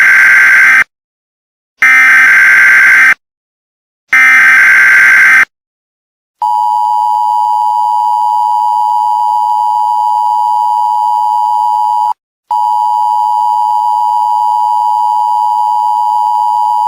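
Emergency Alert System broadcast start: three short, loud bursts of SAME header data, a raspy electronic screech, about a second apart. About a second later the EAS two-tone attention signal begins, a steady dual tone that drops out for a moment about halfway and then resumes. It announces an emergency alert message.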